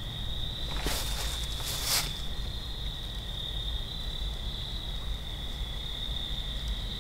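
Crickets chirring steadily in a night forest, a continuous high-pitched trill. Two brief rustles come about one and two seconds in.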